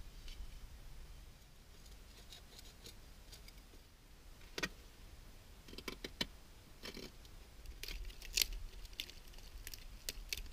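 Knife cutting and scraping at a wooden fireboard, carving the notch for a hand-drill friction fire: scattered sharp clicks and short scrapes, a few of them louder.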